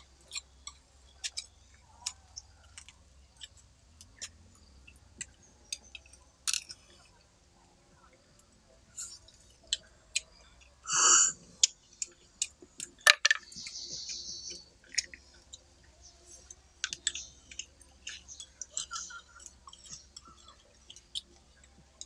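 Sharp clicks, taps and scrapes of a steel knife blade against snail shells, with one louder knock about halfway through.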